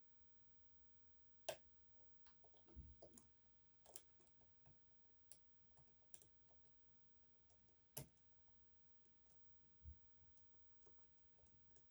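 Faint, scattered clicks and ticks of a hook pick and tensioner working the sliders of an EVVA 3KS high-security lock during picking, with two sharper clicks, about a second and a half in and about eight seconds in.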